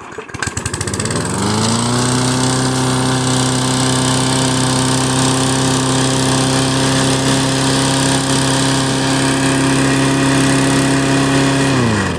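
Weed Eater lawn mower's small engine starting, speeding up over the first couple of seconds and then running loud at a steady high speed. Near the end it is shut off and winds down quickly.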